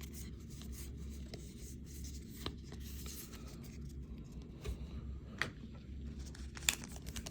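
Baseball trading cards being handled and slid against each other by hand: faint rubbing with scattered light clicks.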